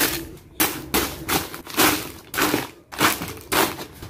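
Plastic sachet packets crinkling and rustling as handfuls are moved and dropped into a cardboard box, in a quick series of short irregular rustles.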